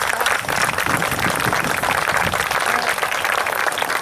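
Crowd applauding: many hands clapping together in a steady patter.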